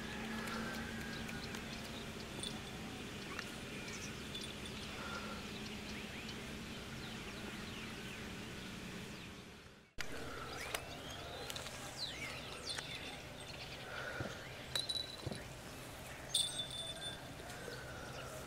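Outdoor ambience: a steady low hum with faint bird calls, fading out about halfway. Then birds chirping and calling, with scattered small clicks and rustles.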